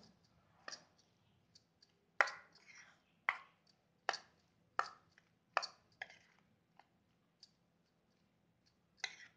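Metal spoon clinking and scraping against a stainless steel bowl while diced cucumber is mixed with spice powders. The clinks are sharp and irregular, the strongest about once a second, and they thin out near the end.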